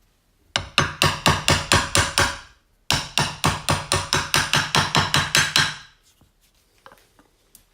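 Hammer tapping on a 36 mm socket to drive a new fork seal into a BMW R80 fork leg: two runs of quick, ringing metal strikes, about five a second, with a short pause between them.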